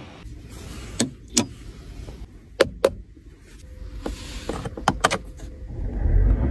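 Sharp clicks and knocks from a Mercedes-Benz GLS 450's door handle and door latch as the door is worked, then more clicks from inside the cabin. A low rumble swells near the end.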